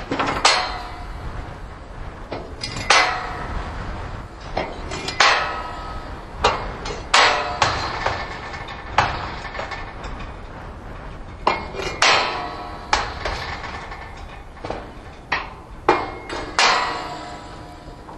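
Steel pipe crowding gate of a circular cattle loading tub being swung round, clanging against the steel pipe frame, about a dozen ringing metal clanks one to three seconds apart.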